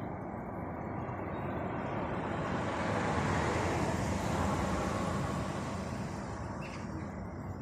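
A car passing close by on an asphalt road: tyre and road noise swells, is loudest near the middle and fades away, over a steady low hum of more distant traffic.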